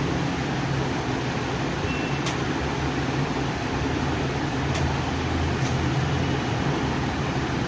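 Steady mechanical hum and hiss, with three faint short clicks about two, four and a half, and five and a half seconds in.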